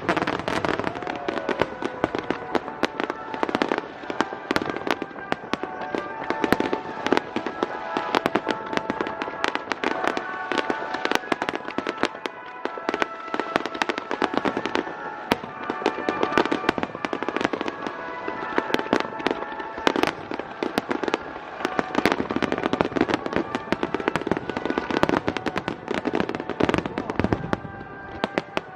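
Aerial fireworks going off in a dense, continuous barrage of bangs and crackling, with music playing underneath.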